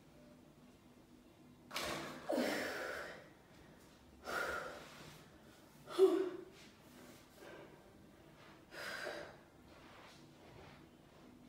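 A woman's heavy breathing from the effort of ab exercises: four forceful, breathy exhalations a couple of seconds apart. The loudest comes about six seconds in.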